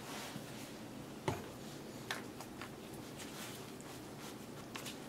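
Small pieces of raw squirrel meat being turned over and handled by hand on a paper bag: faint scattered taps and paper rustles, with one sharper knock about a second in.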